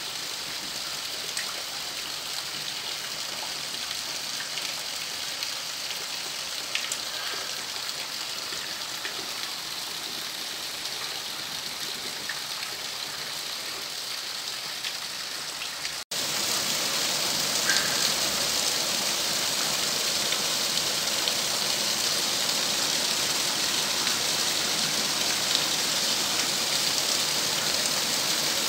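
Heavy rain falling steadily on roofs and trees. Just past halfway the sound cuts out for an instant and comes back louder.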